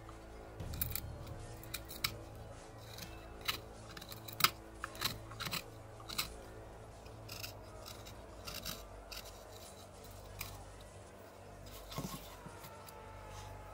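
Carving knife cutting into cottonwood bark: irregular crisp snicks and short scraping strokes, most frequent in the first half.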